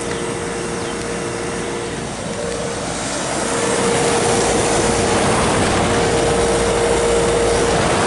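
Trane XB10 central air-conditioner condenser units running: a steady rush of fan air with a steady compressor hum, growing louder about three seconds in.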